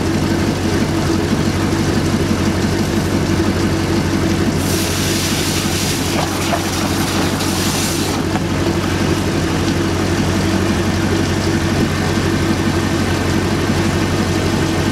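Marine Power 5.7-litre fuel-injected V8 inboard engine idling steadily on its first test run after installation, cooled with water drawn from a bucket. A hiss joins it about four to five seconds in and stops after some three seconds.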